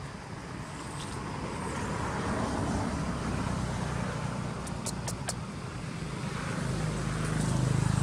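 A motor vehicle's engine running, a steady low rumble that grows louder toward the end. Three quick sharp clicks come about five seconds in.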